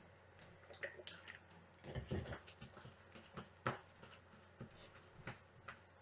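Faint, irregular crinkles and rustles of plastic cling film and a plastic-gloved hand as dye is pressed into a skein of yarn laid on the film.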